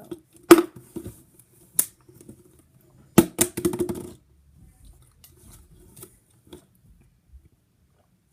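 Plastic water bottles being handled: a few sharp clicks and knocks, with a quick run of them about three seconds in, then only faint ticks.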